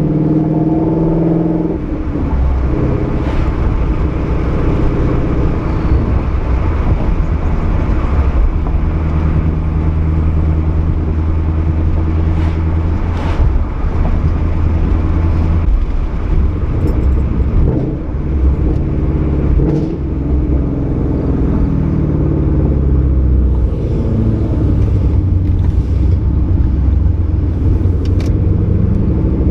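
Ford Mustang 5.0 V8 under way through a Roush axle-back exhaust with an off-road X-pipe: a steady deep exhaust rumble whose pitch rises and falls with the revs, with several short sharp pops scattered through.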